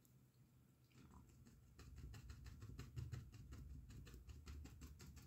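Faint, quick scratchy tapping of a bristle paintbrush working oil paint, starting a couple of seconds in and running on as a steady patter of light taps.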